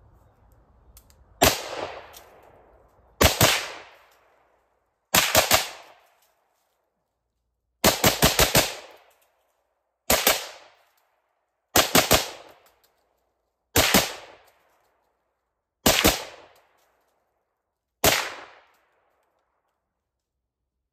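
Suppressed AR-15 (stock Geissele Super Duty) firing through an Anechoic 223 titanium suppressor. It fires about nine strings of one to four quick shots, roughly two seconds apart, each with a short echo tail. The can is a low-back-pressure design with a vented end cap, which makes it a little louder than some traditional cans.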